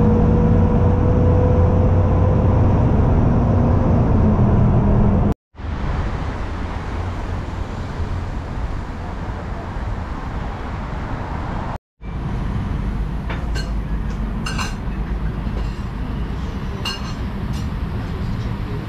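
A vehicle running with a steady low hum and rumble, in three clips cut together; the first has a slowly rising engine tone. A few light clicks come near the end.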